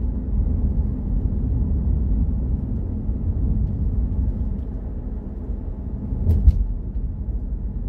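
Steady low rumble of engine and tyre noise heard inside a moving car's cabin, with a couple of brief knocks about six and a half seconds in.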